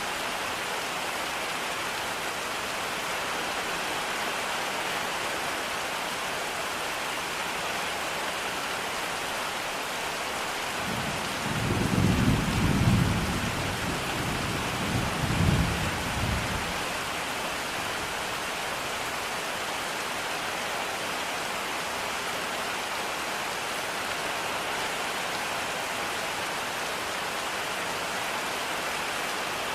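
Steady rain, with a low roll of thunder rising about a third of the way in, peaking twice over several seconds and then fading back into the rain.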